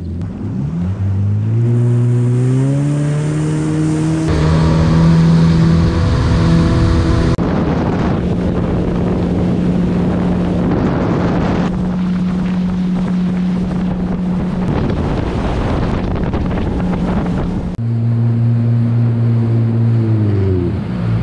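Yamaha WaveRunner personal watercraft's four-stroke engine accelerating, its pitch climbing over the first few seconds. It then runs steadily at speed under the rush of water and wind, and near the end the engine note drops as it slows.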